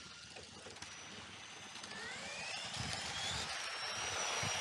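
Electric RC trucks on Tamiya TT-01 chassis running on the track: a high electric-motor whine that rises in pitch as one accelerates about halfway through, then holds steady near the end, growing louder as the cars come closer.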